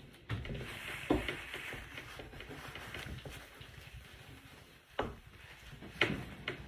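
Dry-erase marker writing on a handheld whiteboard: scratchy, squeaky strokes, with a few short knocks about a second in and again near the end.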